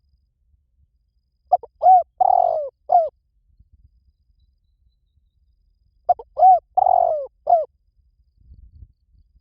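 Spotted dove cooing: two phrases a few seconds apart, each of four notes, the third note drawn out longer than the others.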